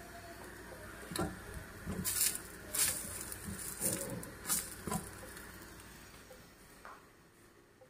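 A spatula scraping and knocking against a frying pan as a fried egg is lifted out: a quick run of short scrapes and taps from about a second in to about five seconds, over a faint steady hiss.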